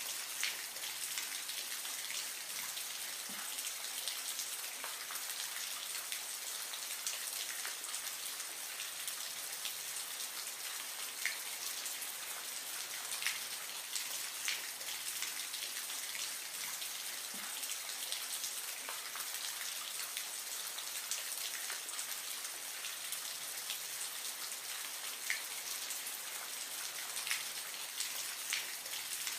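Steady splashing and trickling water with many small scattered drips, like rain falling on a surface.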